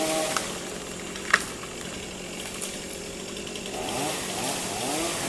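Chainsaw engine running steadily, with a sharp click about a second and a half in.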